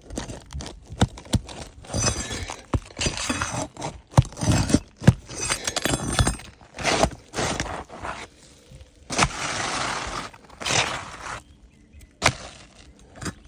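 Hand work on an asphalt shingle roof: irregular cracks, scrapes and metallic clinks as shingles are pried up and old nails are worked loose.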